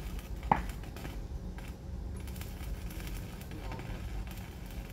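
A single sharp metallic clink with a short ring about half a second in, like metal knocking against the steel roof frame, over a steady low background rumble.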